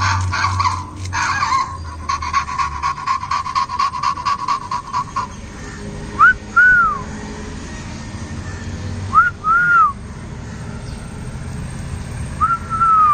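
Electronic sounds from an interactive robot puppy toy. A steady tone with rapid clicking runs for about five seconds, then three short whistle-like chirps, each rising and falling, a few seconds apart.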